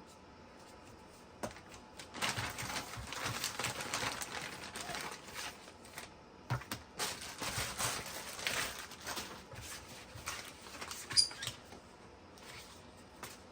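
Packaging and paper handled by hand: irregular rustling and crinkling with scattered light clicks, and one sharper click about eleven seconds in.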